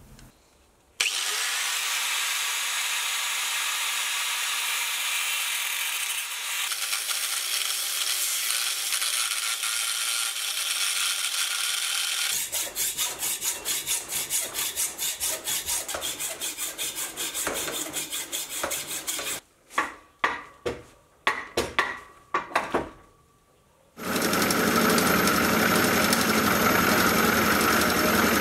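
Metal cutting in stages. A steady hiss runs for about eleven seconds. Then a hand hacksaw cuts through a steel bar in fast, even strokes that break into a few single strokes, and from about four seconds before the end a Sieg X2.7L milling machine runs a face mill across the steel block.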